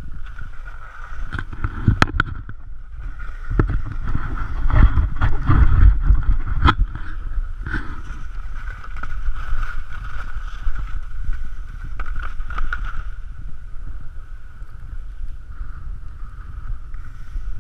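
Wind buffeting the camera microphone, gusting hardest a few seconds in, over the steady hiss and scrape of skis sliding across hard snow. A few sharp clicks, about two seconds in and again near seven seconds.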